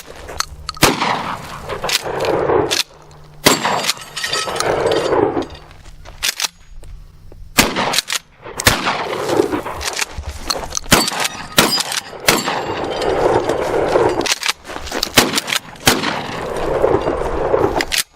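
Mossberg Maverick 88 12-gauge pump shotgun fired repeatedly, each loud shot trailing off in an echo, with sharp clacks from the pump being worked between shots.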